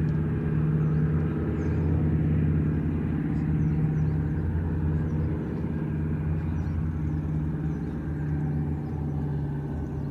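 Douglas DC-3's twin radial piston engines droning steadily in a low, even hum as the plane passes, easing off slightly toward the end.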